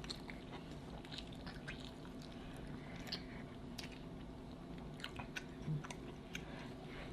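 A person chewing food with the mouth close to the microphone: irregular wet smacks and small clicks.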